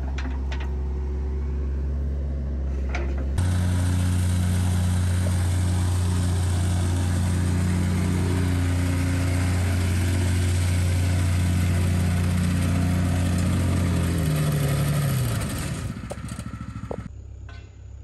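Heavy excavation machine engine running steadily under load. It gets louder after an abrupt change about three seconds in, then its pitch drops as it throttles down near the end.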